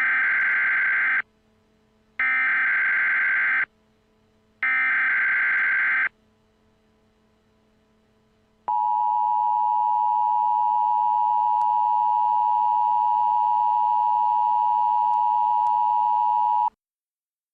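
Emergency Alert System tones in a homemade mock tornado warning: three short SAME header data bursts, each about a second and a half long, then after a pause the steady two-tone EAS attention signal lasting about eight seconds. These tones announce an emergency alert broadcast.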